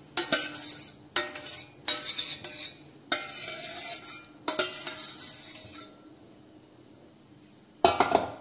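A metal spoon scraping and knocking against steel bowls, about five sharp clatters in the first six seconds, as thick cooked rice-flour paste is scraped out into flour; quieter for a couple of seconds, then one more brief clatter near the end.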